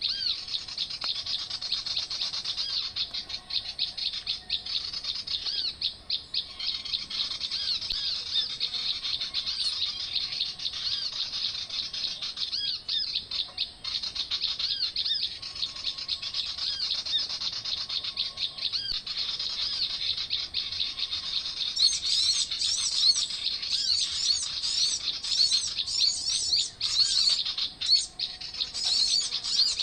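Small birds chirping and twittering in a dense, continuous chorus of short high calls, growing busier and higher-pitched about two-thirds of the way through.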